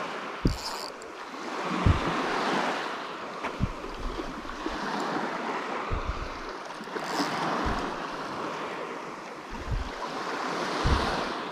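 Sea waves washing, swelling and falling back every few seconds, with wind buffeting the microphone in short low thumps.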